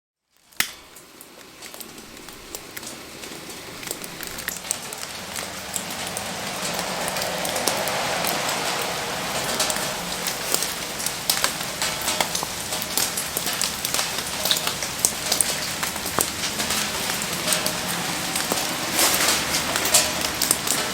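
Steady rain falling, with sharp crackles and pops from a wood campfire burning in it. A loud single click comes about half a second in, and the sound builds over the first several seconds before settling.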